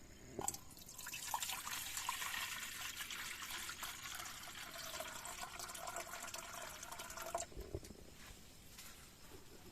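Water poured steadily into a container, a faint note in the stream edging up in pitch, then stopping abruptly about seven seconds in. A click comes just before the pouring, and a few small knocks follow it.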